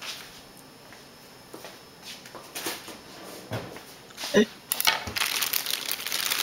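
Plastic fruit packaging crinkling and rustling as hands dig into it for grapes, starting about two-thirds of the way in. Before that, a few light taps and a brief pitched sound.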